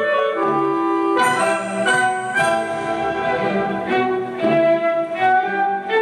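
Orchestral classical music with strings, notes changing about every second.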